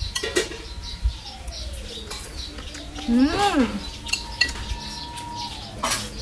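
Spoon and bowl clinking a few times during tasting. A short rising-and-falling pitched call comes about three seconds in, and long whistle-like tones slide downward in the background.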